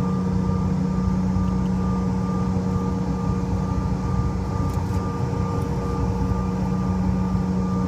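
Airliner engines and cabin heard from inside the cabin as the plane moves on the ground: a steady, even hum with a strong droning tone that neither rises nor falls.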